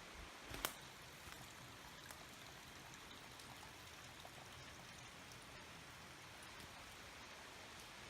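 Faint, steady rush of a nearby river, with one sharp click just over half a second in.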